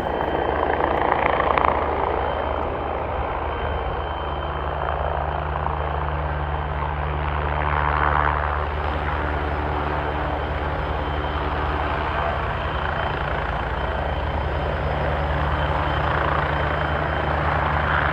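Back-up generator's engine running steadily, with a low, even hum that firms up about four seconds in. It runs again after its start switch was unplugged and plugged back in.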